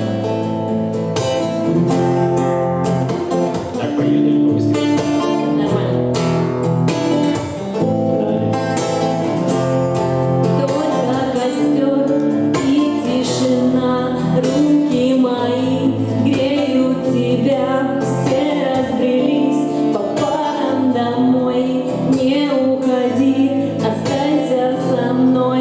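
Music: the opening of a song, with guitar and singing over a full accompaniment.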